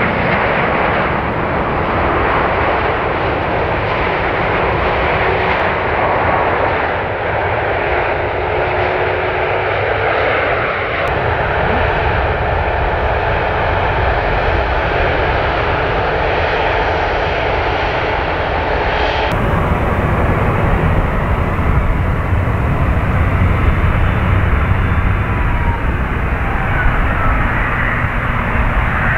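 Rolls-Royce Trent XWB turbofans of an Airbus A350: the steady jet noise of an A350 landing and touching down. About two-thirds of the way in it switches to another A350 on its takeoff roll, louder and with a deeper rumble.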